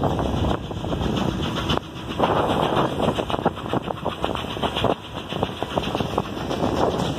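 Steam-hauled excursion train rolling through a rail yard, heard from the side of a car: a steady rumble with irregular clanks and knocks of wheels over rail joints and switches.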